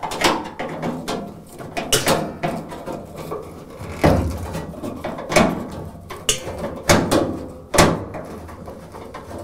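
Irregular knocks and clatters of hard objects handled against a washing machine's open sheet-metal cabinet: about seven sharp knocks spread out, the loudest near the end.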